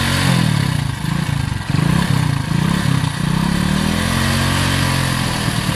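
Motorcycle engine running with its exhaust blowing into a balloon taped over the silencer, the revs rising and falling several times in the first three seconds before settling to a steadier speed.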